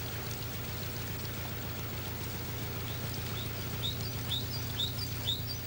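Canal boat's engine running steadily with a low, even throb and water noise. From about three seconds in, a bird calls a short falling note over and over, about two a second.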